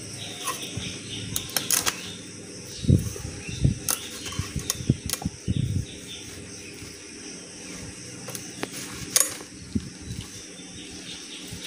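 A whole rohu (rui fish) being scraped against a boti, the fixed curved blade of a Bengali kitchen, to take off its scales: irregular rasping scrapes and soft knocks, busiest from about three to six seconds in.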